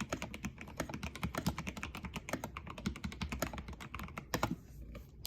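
Typing on an NJ80 AP mechanical keyboard with a brass plate, stock Gateron Yellow Pro linear switches and XDA profile keycaps: a fast, steady run of key clacks that stops about four and a half seconds in.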